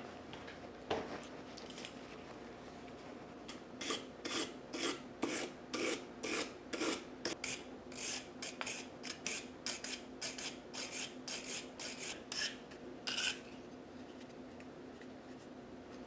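A hand wire brush scrubbing the presser bar of a Singer 237 sewing machine, in quick scratchy back-and-forth strokes of bristles on metal, about two to three a second. It starts with a couple of single scrapes, gets going a few seconds in, and stops a few seconds before the end.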